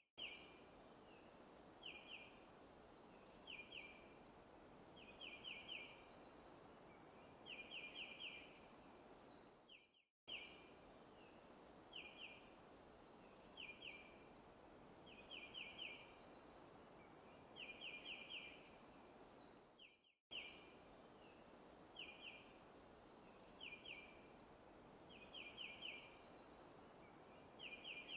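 Faint looped forest ambience: a bird repeating short, high chirps in quick clusters of one to five notes over a soft steady hiss. The same ten-second stretch repeats, cutting out for a moment between repeats.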